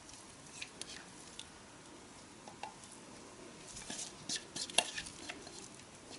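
Spatula scraping thick cream out of a glass bowl, with faint scattered clicks and taps of the spatula against the glass. A flurry of sharper taps comes a little past the middle.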